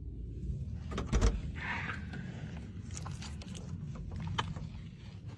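An interior door being unlatched and opened: a few sharp clicks about a second in, the loudest part, then scattered lighter clicks over a steady low rumble.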